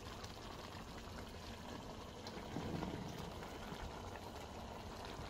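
Faint simmering of a pot of ground beef and zucchini stew bubbling in its own juices. A slightly louder soft rustle partway through as sliced raw mushrooms are tipped in from a bowl.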